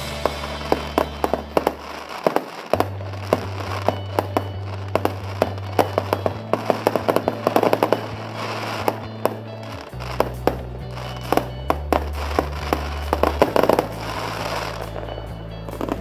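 Fireworks going off, with rapid crackling pops and bangs, over music with sustained bass notes.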